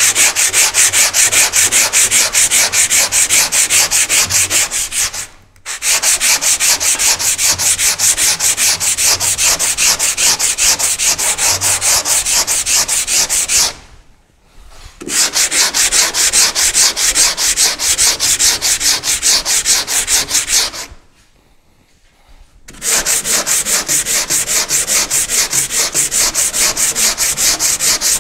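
Hand sanding of auto body filler with sandpaper on a sanding block: quick, even back-and-forth strokes in four runs, with short pauses between them.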